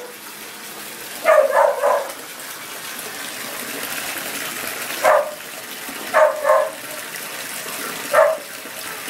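A small dog barking in four short bouts, the first a quick run of yaps and the rest single or double barks.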